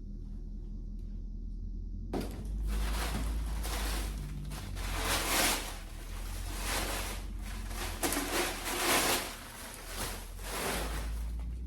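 Irregular rustling and scraping of furniture parts and packaging being handled, starting about two seconds in, over a low steady hum.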